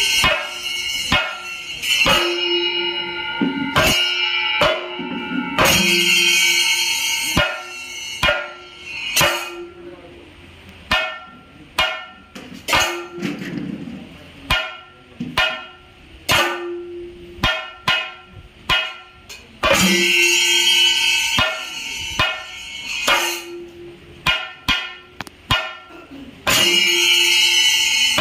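Thayambaka on Kerala chenda drums: sharp stick strokes, sometimes single and spaced apart, sometimes massed into loud dense rolls lasting a second or two, at the start, around six seconds in, around twenty seconds in and near the end. Brass elathalam cymbals ring a steady tone underneath.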